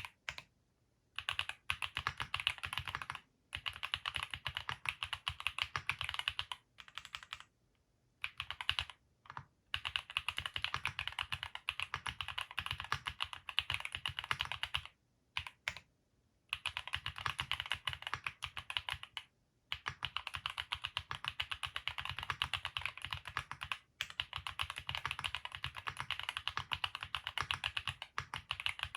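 Fast typing on a Vertex Arc60 custom mechanical keyboard with Haimu Sea Salt linear switches: quick runs of keystrokes lasting several seconds, broken by short pauses several times.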